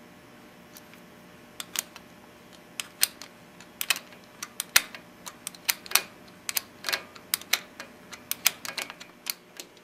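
Irregular small metal clicks and taps as a bicycle front reflector bracket is handled and fastened onto the handlebar stem. The clicks start about a second and a half in and come faster later.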